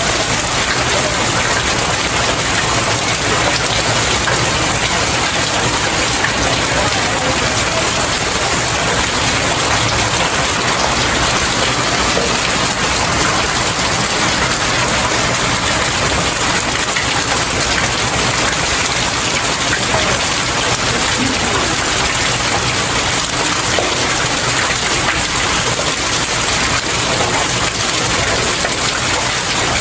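Steady, heavy rain falling and pattering on outdoor stairs, a dense even hiss of drops.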